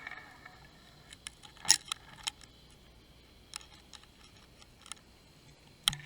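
A series of irregular light clicks and knocks, with two sharper knocks, one under two seconds in and one near the end.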